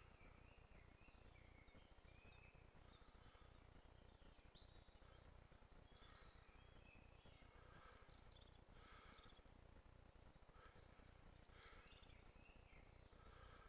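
Near silence with faint songbird chirps and short trills scattered throughout, over a low steady background rumble.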